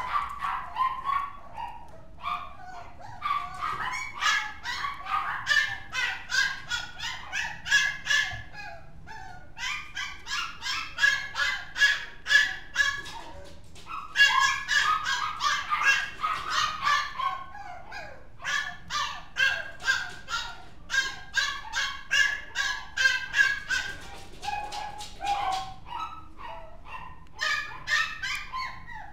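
Small dog yapping in long runs of short, high-pitched yaps, several a second, with brief pauses between the runs.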